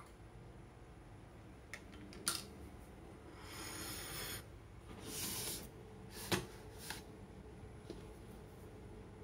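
Small kitchen handling noises: several sharp clicks of a utensil or dish against a ceramic plate, and two short scrapes of about a second each near the middle.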